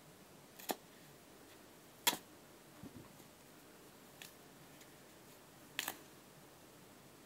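Knife cutting through a piece of a football boot, giving a few short, sharp clicks and snaps, the loudest about two seconds in.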